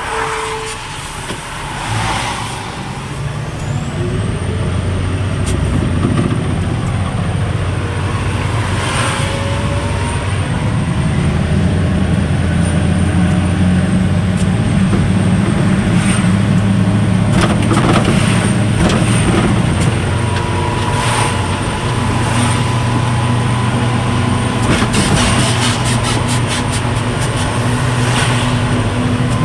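Concrete mixer truck's diesel engine running, its note shifting up and down a few times, with a faint high steady whine and short sharp noises now and then.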